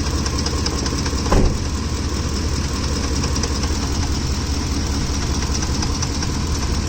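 Ford F-150's 5.4-liter 3V Triton V8 idling hot, with a rapid, steady ticking clatter from the top of the engine, which the owner wonders may be some form of camshaft problem. A single thump about a second and a half in.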